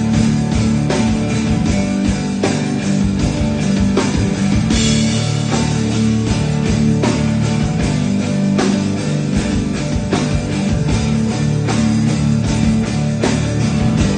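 Live rock band playing an instrumental passage: electric guitars and keyboard holding chords over a steady drum beat, with a cymbal crash about five seconds in.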